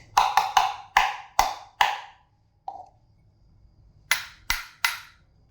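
Cups being knocked or tapped: a quick run of about six ringing knocks, a pause, then three sharper knocks near the end. This is a comparison of the sound of an empty cup with one holding water.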